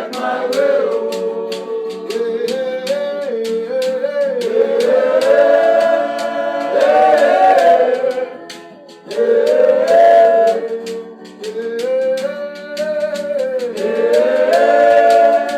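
Gospel worship singing: long, held, wordless vocal phrases rising and falling over music, with a regular light percussive tick.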